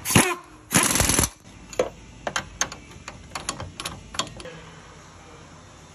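Two short bursts from a power wrench turning a socket on the lower shock absorber mounting bolt, the second about half a second long. Then comes a run of sharp, irregular metallic clicks as a wrench works the shock's upper mounting nut.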